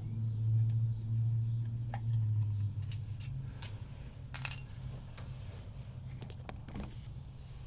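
Small metal parts clinking and tapping as they are handled, a few separate clicks with one brighter metallic clink about four and a half seconds in, over a steady low hum.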